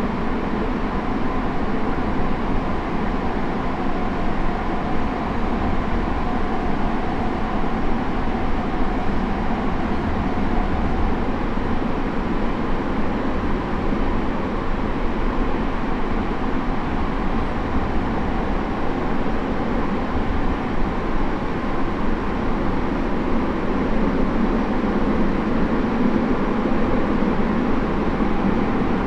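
Saitama Railway 2000-series electric train running at steady speed, heard inside the passenger car: a constant rumble of wheels on rail with a faint steady whine from the running gear, in a tunnel.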